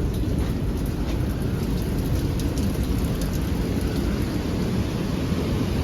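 Steady, loud rush of a fast mountain river pouring through a narrow gorge.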